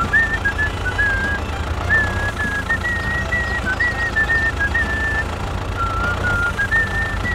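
Low, pulsing tractor engine running steadily as the tractor hauls its trolley, with a high whistled tune of short stepping notes over it.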